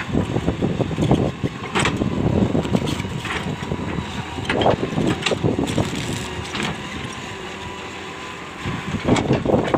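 Hitachi 200LC excavator's diesel engine running, with several sharp knocks at irregular intervals.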